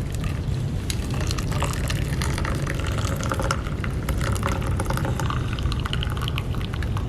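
Liquid being poured into a container, with small splashing crackles, over a steady low rumble of wind on the microphone.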